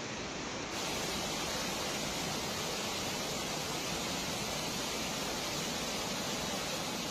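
Fast-flowing floodwater rushing and churning in a torrent, a steady noise that gets a little louder and hissier about a second in.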